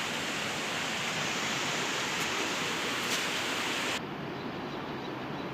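Steady rushing of flowing water in a small canal, a smooth hiss without rhythm; about four seconds in it abruptly turns quieter and duller.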